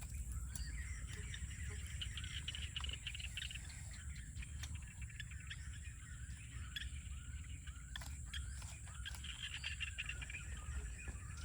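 Outdoor rural ambience of birds chirping, many short rising calls, over a steady high-pitched hum and a low rumble.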